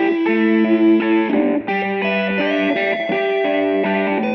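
Music played on electric guitar through effects, with sustained notes changing every half second or so and a brief break about a second and a half in.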